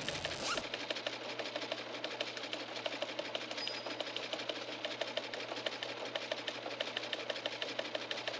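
A machine clattering in a fast, even rhythm, like a sewing machine or small press running continuously, with a sharper click about half a second in.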